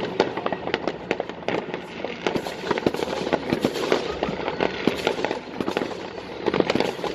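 Fireworks going off: a dense, continuous run of sharp bangs and crackles, many per second, with no let-up.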